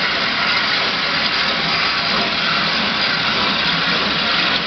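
Steam train pulling away from the station: a steady hiss and rumble, even throughout, with no separate beats standing out.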